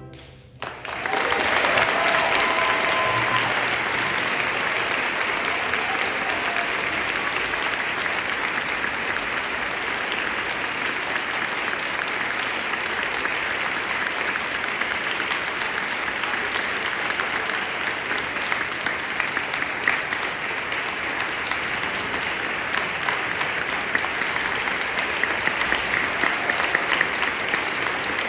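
Concert audience applauding: the applause breaks out about half a second in, right after the band's final chord stops, and goes on steadily.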